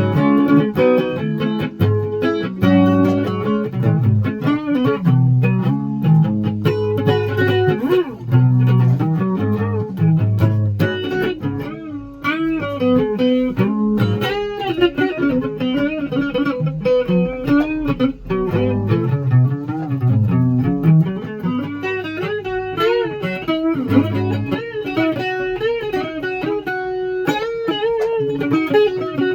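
Guitar music: a run of plucked notes played continuously.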